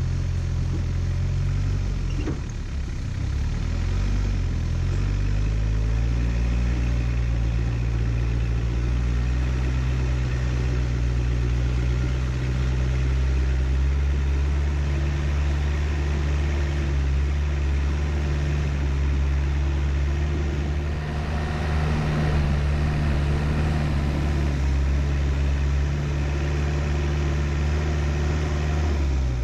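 Four-wheel-drive vehicle's engine running steadily at low speed over a rough grassy track, its note shifting a few seconds in. About three quarters of the way through, a rushing noise rises over it for a few seconds.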